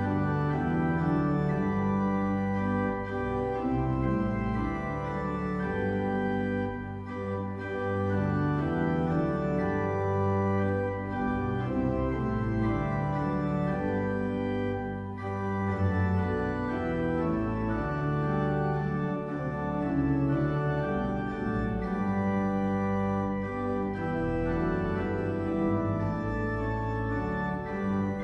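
Organ music: held chords with a bass line beneath, the notes changing every second or so.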